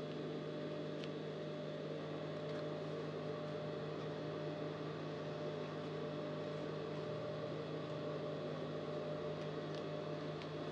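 Steady electrical hum, with a few faint ticks and rustles from fabric and pins being handled.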